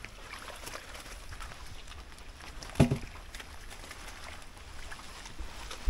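Faint outdoor ambience, an even low hiss, with one short low sound about three seconds in.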